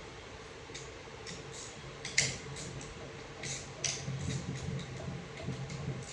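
Scattered light metallic clicks and ticks from hand tools and loose transmission parts being handled, the loudest about two seconds in, with a low uneven hum underneath in the second half.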